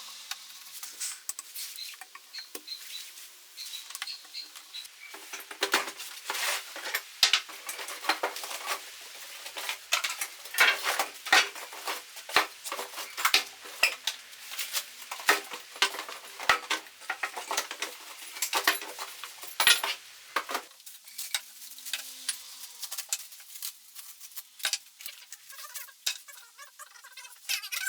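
Irregular clicking and clattering of hard parts being handled and fitted together, with sharp knocks of plastic and metal. The clatter is busiest in the middle stretch and thins out near the end.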